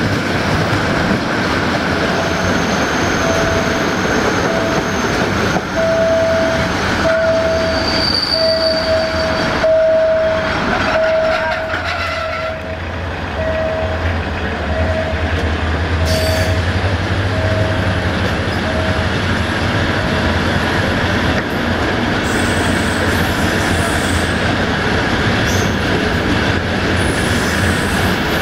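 Passenger train running along the line with a steady rumble. Over it a level-crossing warning bell sounds about once a second, growing louder and then fading away as the train passes the crossing. There are brief high wheel squeals.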